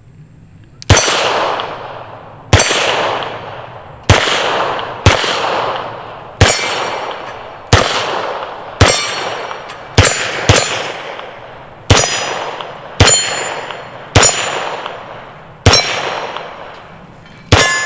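Beretta M9 9mm pistol fired about fourteen times at a steady pace, roughly one shot every second or so, each shot trailing off in echo. Steel targets ring after the hits.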